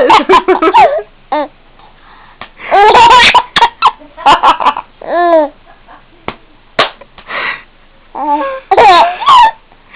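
A baby girl laughing in several bursts of high-pitched giggles, with short quiet gaps between them.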